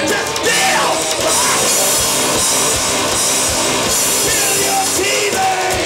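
Live rock band playing loud and steady: electric guitar, bass guitar and electronic drum kit, with bright cymbals up high from about a second in.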